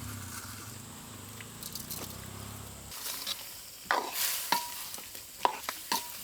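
Food sizzling in a cooking pot while it is stirred. In the second half a spoon scrapes and clinks against the pot four or five times, some strikes ringing briefly.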